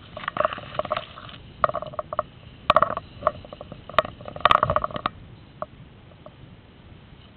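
Short, irregular bursts of rapid clicking with a steady whine underneath, typical of airsoft electric guns firing in bursts. The longest burst comes about four and a half seconds in, and only a few single clicks follow.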